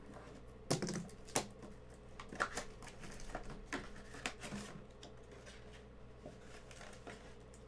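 A cardboard trading-card box being handled and opened by hand: scattered short clicks and rustles as the flap is pulled open and the plastic-wrapped packs inside are touched, the sharpest clicks about a second in.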